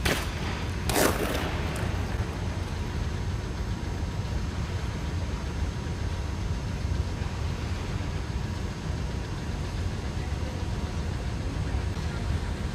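A steady low rumble of indoor ice-rink background noise. About a second in, a short swishing scrape of skate blades on the ice.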